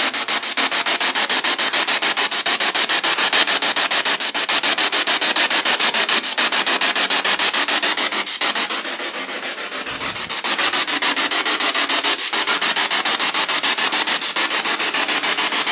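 A spirit box sweeping rapidly through radio stations, played through a portable JBL speaker: a steady hiss of static chopped by even clicks several times a second. It drops softer for about two seconds past the middle.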